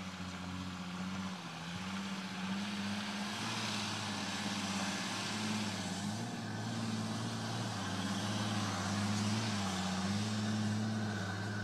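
Mercedes-Benz G-Class Professional off-roader's engine running under load as it drives across rough hillside terrain, its pitch rising and falling a little with the throttle.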